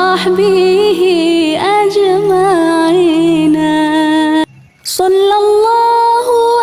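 A solo voice singing an Islamic salawat in a slow, melismatic style, holding long wavering notes over a steady low tone. The singing breaks off briefly about four and a half seconds in, then resumes on a held note.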